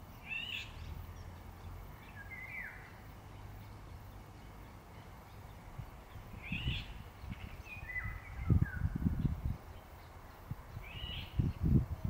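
A bird singing short phrases, about five of them with pauses between, each a quick run of high notes. Bursts of low rumble from about eight seconds in.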